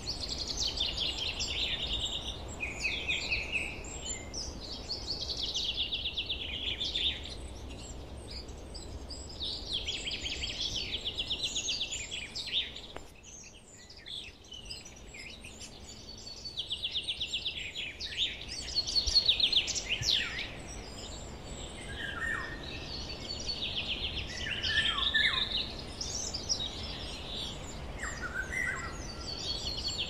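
Forest songbirds singing, with repeated fast trilled phrases of about two seconds each and a brief lull around the middle, over a low steady rumble.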